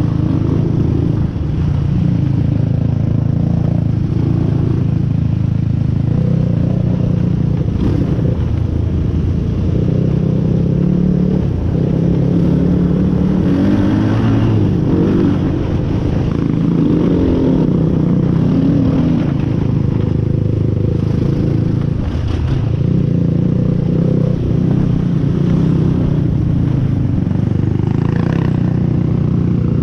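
Off-road vehicle engine running continuously on a trail ride, its pitch shifting up and down with the throttle, with a few brief knocks and rattles.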